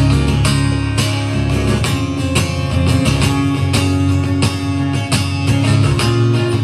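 Guitar strummed in a steady rhythm, an instrumental passage of a live rock song with no singing.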